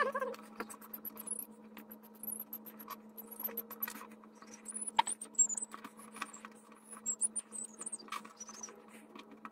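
Sped-up handling sounds of screws being fitted to a pinball playfield's plexiglass window: scattered small clicks and taps with high, chirping squeaks over a steady low hum. The sharpest click comes about halfway through.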